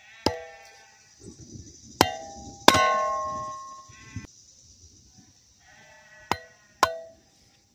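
Cast-iron kindling splitter being struck to split small logs into kindling: five sharp metallic clangs, several ringing on at one pitch, one for over a second before it stops short, with wood and handling rustle in between.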